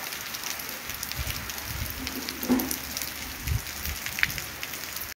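Light rain falling steadily on a wet street and trees, a dense patter of small drop ticks, with a low rumble and a brief louder thump around the middle.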